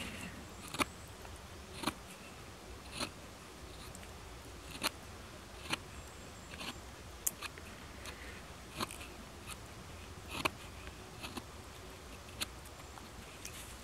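Carving knife paring small shavings from a green wooden stick: short, crisp slicing cuts, about one a second at uneven spacing.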